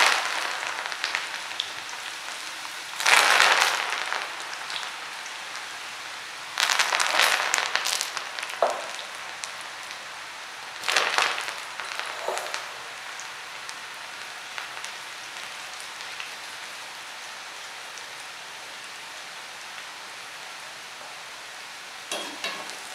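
Cassava bhajia fritters deep-frying in hot oil: a steady sizzling hiss, with louder surges of sizzling about three seconds in, around seven seconds and around eleven seconds.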